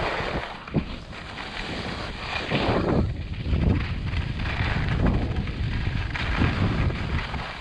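Skis swishing and scraping through fresh snow, in a surge with each turn about every second or so, with wind rumbling on the microphone and a short knock a little under a second in.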